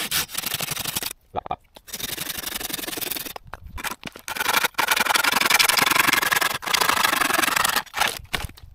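Silky Gomboy folding saw cutting through dead branches: fast rasping saw strokes in several runs, with short pauses between them.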